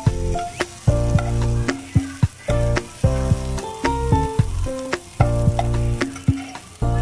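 Background music with a steady beat, over chopped onion and garlic sizzling in hot oil in a nonstick pan and a metal spoon stirring them.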